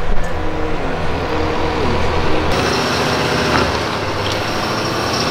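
A motor vehicle or machine engine running steadily, with a gently wavering pitch. About halfway through, the sound changes abruptly.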